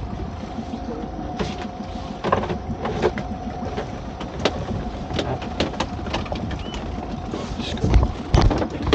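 A small fishing boat's motor running steadily, with scattered knocks and clatter as crab pots and a spider crab are handled on deck, and a few heavy thumps near the end.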